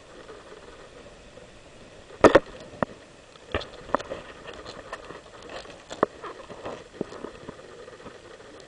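Irregular sharp ticks and knocks of sand hitting the camera close to the microphone, over a faint steady background rush. The loudest is a double knock about two seconds in, followed by scattered single ticks.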